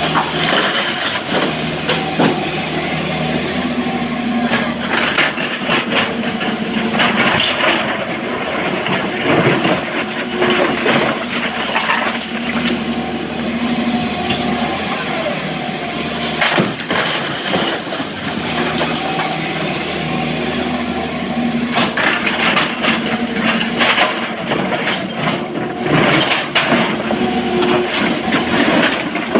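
Diesel hydraulic excavator working, its engine rising and falling under load every few seconds, with repeated clattering knocks of rock and the steel bucket as a truck is loaded.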